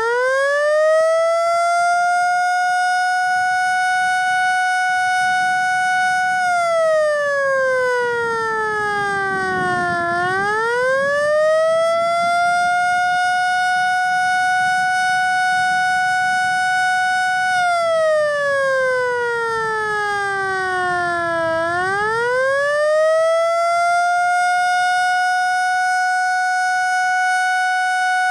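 Federal Signal Model L eight-port siren sounding a mock attack signal. Its single loud tone climbs quickly to a steady high pitch, holds for about five seconds, then slides slowly down and climbs back again, repeating this twice.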